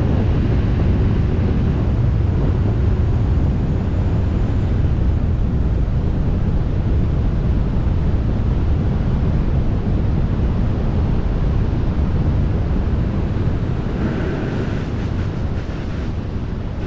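Wind rushing over the microphone of a wingsuit flyer in flight: a loud, steady low rumble of wind buffeting, easing slightly near the end.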